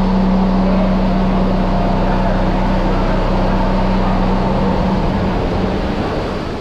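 Steady, loud machinery hum with a low tone, over the rushing and churning of water in a treatment plant's open filter beds. It eases off slightly near the end.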